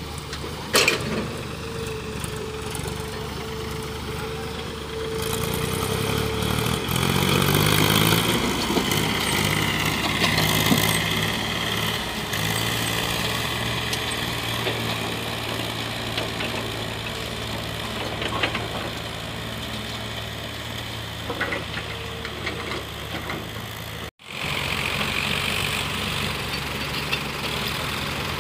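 Diesel engines of an excavator and farm tractors running, with one revving so its pitch rises and falls about six to twelve seconds in. The sound cuts out for an instant near the end.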